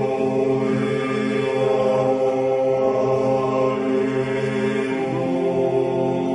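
Georgian church chant sung in long, slow held notes, a hymn of praise to the Lord; the voices move to new pitches about five seconds in.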